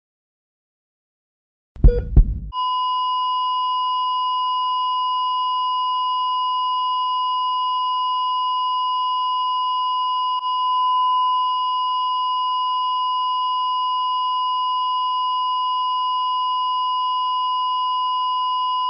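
Heart-monitor (EKG) sound effect: one last low heartbeat thump about two seconds in, then the flatline alarm, a single continuous high-pitched tone held at a steady level. The unbroken tone signals that no heartbeat is detected: cardiac arrest.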